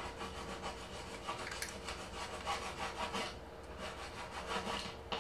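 Irregular scraping and rubbing of hard plastic as a Dyson cordless vacuum floor head is worked on by hand with a Torx screwdriver, undoing a remaining screw. A faint steady hum runs underneath.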